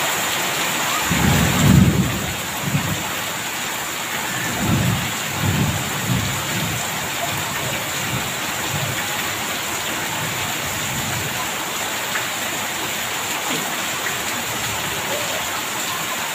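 Heavy rain pouring onto tiled paving, a steady loud hiss. Low thunder rumbles about a second in, then rolls again a few seconds later and fades over several seconds.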